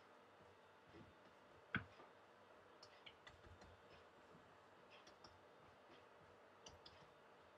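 Faint, scattered soft clicks and pats of raw beef mince being pressed and patted into a burger patty between the hands, with one sharper click a little under two seconds in, over low room hiss.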